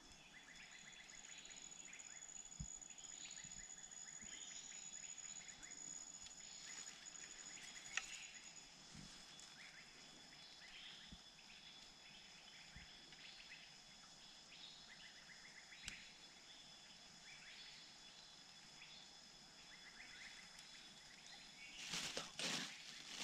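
Faint forest ambience: a steady high-pitched insect drone with scattered short chirps, and a brief rustle near the end.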